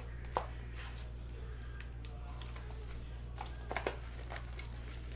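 Foil trading-card packs and cards being handled on a table: faint rustling with a sharp tap about half a second in and a few quick taps near four seconds, over a steady low hum.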